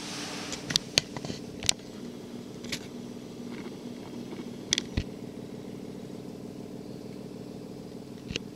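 A steady engine hum, as of a motor idling, with scattered sharp knocks and clicks over it.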